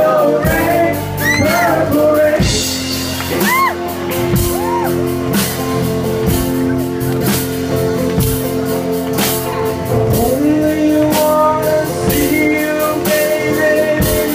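Live rock band playing: electric guitars holding sustained chords over a steady drum beat, with a male singer's voice and a few sliding high notes in the first few seconds.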